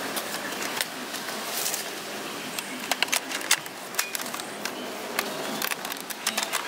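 Hard plastic clicks and rattles from a toy multi-barrel dart blaster being handled, with irregular sharp clicks coming more often from about two and a half seconds in.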